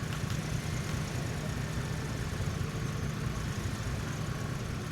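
An engine running steadily at idle, a low even rumble.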